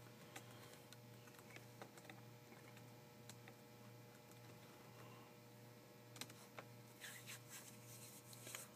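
Faint clicking of a computer keyboard and mouse, scattered at first, with a quick run of keystrokes over the last two or three seconds, over a low steady hum.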